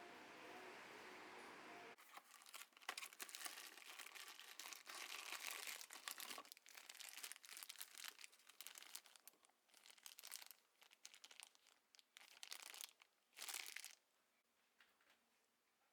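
Faint, irregular crinkling and crackling, like something being crumpled or handled, for about twelve seconds, stopping near the end.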